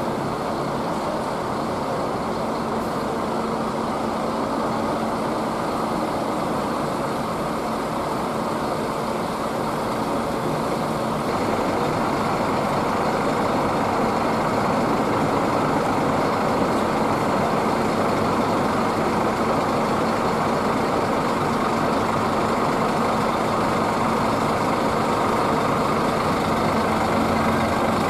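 Scania K360IB coach's rear-mounted diesel engine idling steadily, a little louder from about eleven seconds in.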